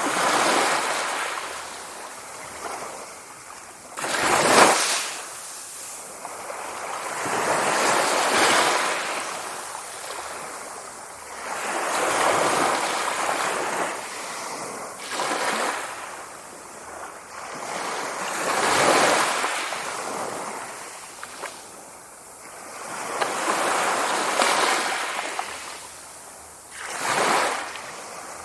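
Sea waves breaking and washing in, a hissing surge that swells and dies away every three to five seconds, the sharpest and loudest crash about four seconds in.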